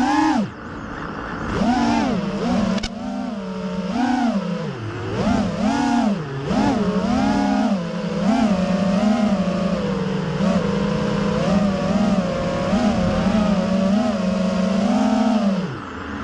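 FPV freestyle quadcopter's iFlight Xing brushless motors and propellers whining, recorded from the onboard camera. The pitch swings up and down constantly with the throttle, dropping sharply just after the start and again near the end.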